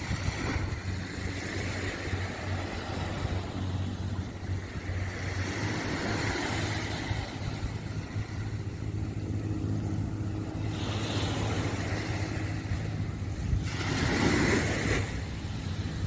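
A steady low motor drone, such as a distant motorboat engine, under wind and gentle surf on the shore, with a louder rush of noise near the end.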